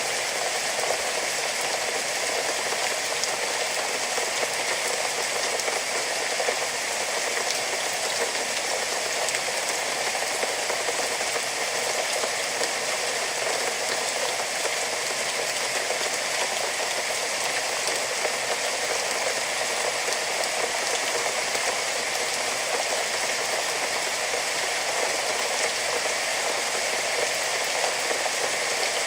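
Steady rain falling, a dense even hiss with no distinct drops or pauses.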